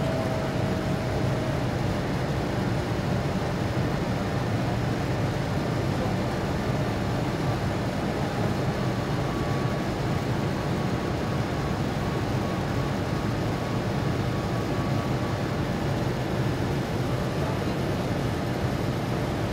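Steady cabin noise of a Boeing 787 Dreamliner in its climb after takeoff: its Rolls-Royce Trent 1000 engines and the airflow heard as an even low noise from inside the cabin, with faint steady tones above it.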